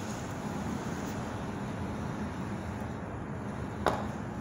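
Steady road and tyre noise of a car driving, heard from inside the cabin, with one short click near the end.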